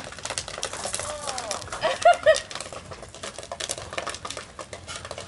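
Popcorn popping in a Griswold cast-iron skillet over a wood fire, a rapid, irregular clatter of small ticks. About two seconds in, two short high-pitched vocal cries stand out as the loudest sound.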